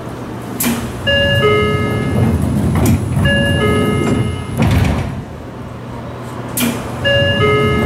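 Seibu 9000 series commuter train's sliding doors and door chime at a station stop: a short two-note electronic chime sounds three times, each just after a sharp knock or puff of air from the doors, over the car's steady low hum, before the doors close.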